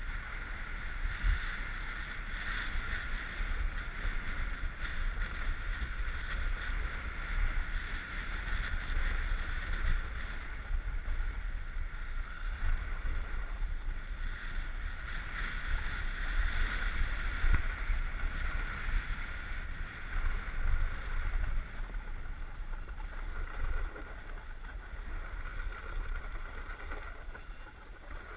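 Wind buffeting a GoPro's microphone as its wearer slides down a groomed ski run, with the rush and scrape of the board over packed snow; it eases off near the end as the run flattens out.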